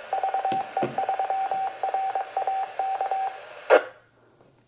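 Repeater received through a mobile radio's speaker: over steady carrier hiss, a single-pitch tone keys on and off in short and long beeps, a Morse code identification sent by the repeater after the transmission. About 3.7 seconds in it ends with a short squelch-tail burst of noise, then the radio goes quiet.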